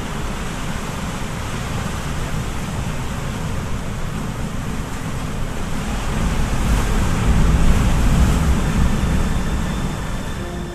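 Wind and sea water rushing past a moving boat, with wind buffeting the microphone; it grows louder for a few seconds past the middle.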